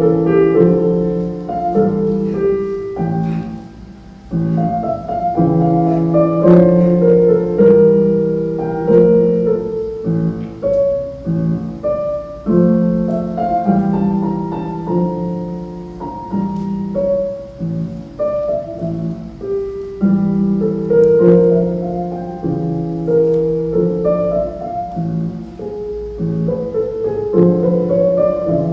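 Piano music: a flowing line of struck notes over chords, dipping briefly softer about four seconds in.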